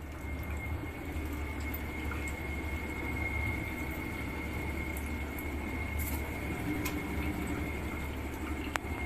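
Washing machine draining: water running steadily through the drain outlet hose, over a constant low hum and a thin high whine.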